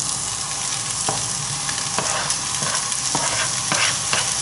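Diced bacon going into a frying pan of onion and garlic in hot olive oil, sizzling steadily, with scattered sharp clicks as the pieces are tipped in and stirred with a spatula.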